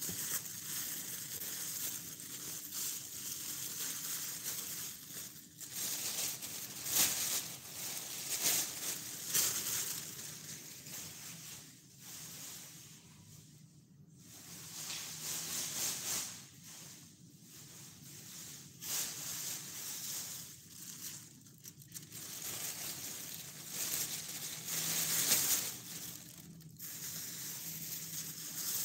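Plastic bags rustling and crinkling as they are handled, in irregular bursts, with a lull about halfway through.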